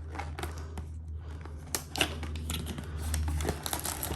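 Packaging of a sweeper kit being opened and handled: scattered rustling, scraping and clicks, with a sharper click about two seconds in and crinkling that grows louder near the end. A steady low hum runs underneath.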